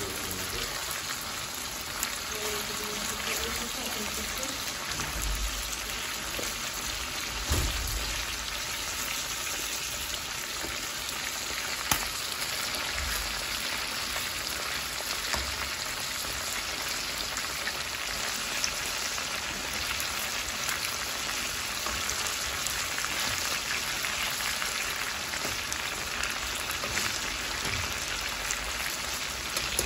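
Meat and potatoes frying in hot oil in a pan: a steady crackling sizzle, with a couple of sharper pops.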